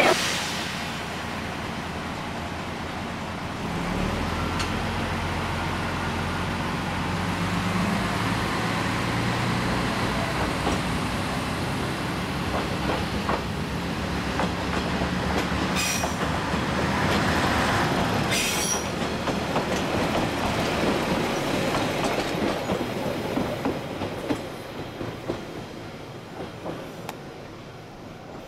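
Akechi Railway single-car diesel railcar pulling away from the station: its diesel engine runs up about four seconds in, the wheels clatter on the rails, and the sound fades near the end as it moves off.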